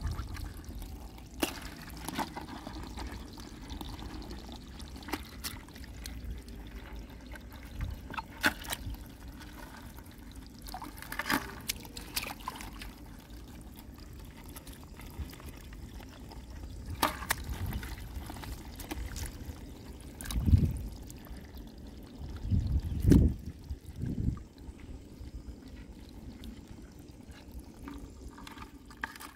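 Hands splashing and stirring in shallow muddy water, with water trickling and dripping and scattered small clicks. A few dull thumps about two-thirds of the way through are the loudest sounds.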